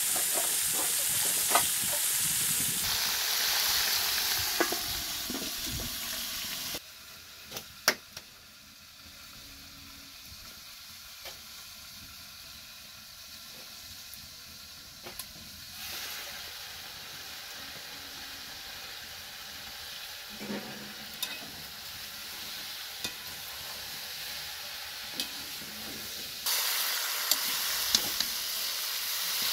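Chicken feet sizzling as they fry in a wide metal pan, with a metal spatula clinking and scraping against the pan as they are stirred. The sizzle is loud for the first several seconds, drops much quieter about seven seconds in, and comes back loud near the end.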